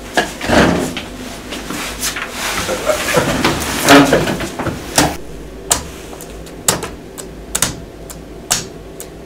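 Rustling and shuffling of movement for the first few seconds, then a laptop spacebar pressed about once a second, each press a sharp click, a beat that ticks off the seconds.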